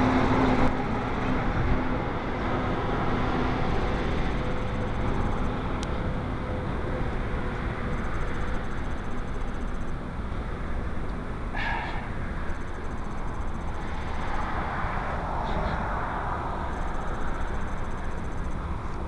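Steady outdoor vehicle and road noise, a continuous low rumble, with one brief higher sound about twelve seconds in.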